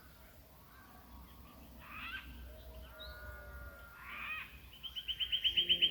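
A dawn chorus of Australian bush birds: several birds giving whistles and chirps, then near the end one breaks into a fast run of repeated high notes, about eight a second, the loudest sound here.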